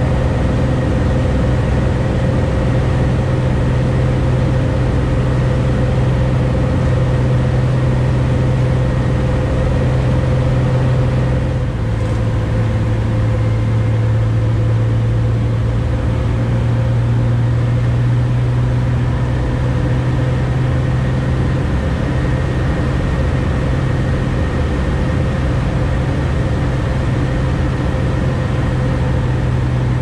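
Cessna 180's Continental O-470 six-cylinder engine and propeller droning steadily in flight, heard inside the cabin. The pitch dips slightly about twelve seconds in and rises back about ten seconds later.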